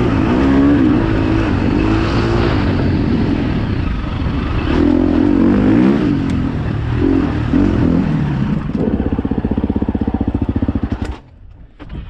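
Dirt bike engine running under riding, its pitch rising and falling with the throttle, settling to a steady, evenly pulsing note about nine seconds in, then stopping abruptly near the end.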